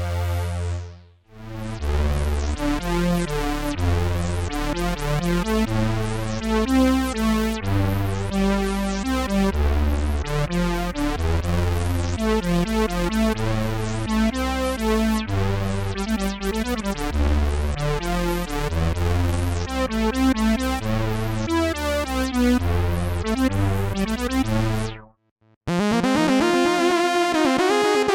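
Roland Gaia-2 synthesizer playing a demo pattern with a repeating bass line under rapid higher notes. The sound breaks off briefly near the end, and a different patch starts.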